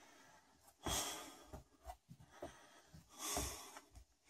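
A person breathing close to the microphone: two hissy exhales, one about a second in and another just past three seconds, with a few faint soft knocks between.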